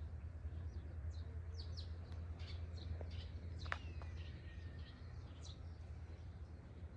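Small birds chirping: many short, high chirps repeating over a steady low hum. A single sharp click a little past halfway.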